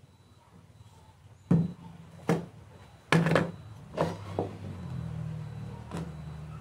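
A handful of sharp wooden knocks and clacks as glued mitred moulding pieces and a plastic glue bottle are handled and set down on a wooden workbench, a few close together near the middle. A low steady hum comes in about halfway through.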